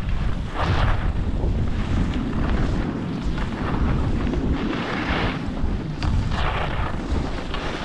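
Wind buffeting a skier's action-camera microphone as a low, steady rumble, with the hiss of skis scraping across packed snow rising at each turn, roughly every second and a half, the longest scrape about five seconds in.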